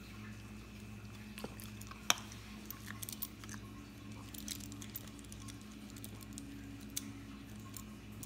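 Shiba Inu puppy chewing a food treat, with scattered small clicks and soft rustles as a hand rubs his fur and collar, and one sharper click about two seconds in. A steady low hum runs underneath.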